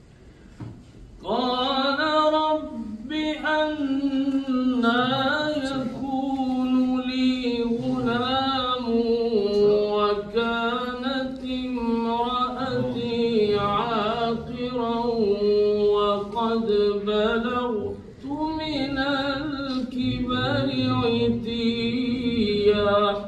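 A man's voice in slow, melodic Quran recitation, holding long ornamented phrases that waver up and down in pitch. It begins about a second in and pauses briefly for breath about eighteen seconds in.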